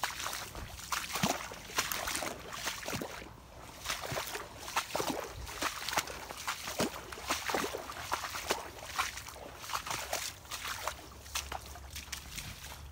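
Footsteps splashing and squelching through shallow water and mud on a flooded track, at a walking pace of one or two steps a second, thinning out near the end.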